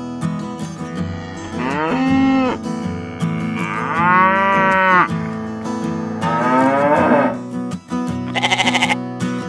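Three cow moos, each rising then falling in pitch, over steady acoustic-guitar background music, followed by a quavering bleat near the end.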